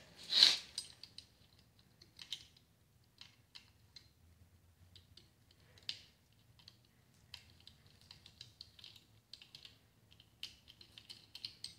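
Light, irregular metallic clicks and taps of hands and a small tool working on the parts of a Milwaukee 4094 drive motor being taken apart, with one sharper click about half a second in.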